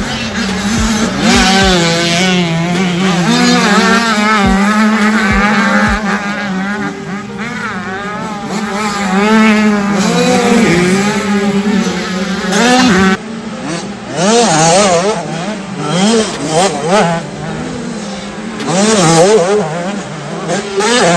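Small 65cc two-stroke motocross bike engines revving hard, their pitch rising and falling quickly over and over with throttle and gear changes. The sound jumps to another stretch of track about 13 seconds in, where more bikes rev past.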